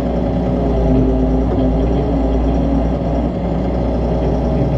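Doosan DX140 excavator's diesel engine running steadily during a test run after its hydraulic pump has been repaired: a low drone with a higher hum that wavers now and then.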